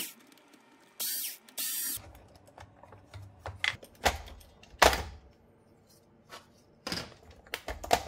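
Handheld National cordless drill & driver whirring in two short bursts about a second in as it drives out screws on a Roomba's underside, followed by scattered plastic clicks and knocks as the robot's brush guard and brush roll are worked loose.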